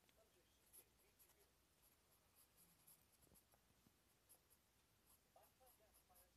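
Faint scratching of a pencil shading on paper in many short, quick strokes.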